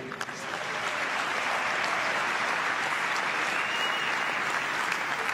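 Large arena crowd applauding, building over the first half second and then holding steady.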